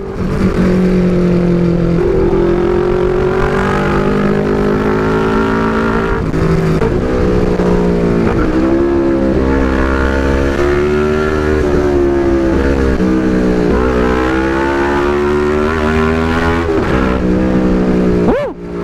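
Two-cylinder motorcycle engine running under way, its pitch rising and falling with the throttle. The muffler on it is one the rider finds too noisy.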